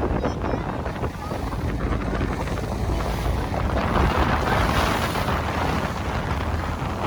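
Wind buffeting the microphone aboard a moving tender boat, over a steady low rumble.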